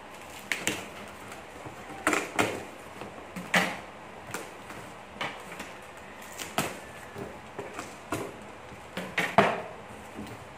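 Reams of bond paper being handled, taken out of a box and set down on a desk: a string of irregular rustles and knocks.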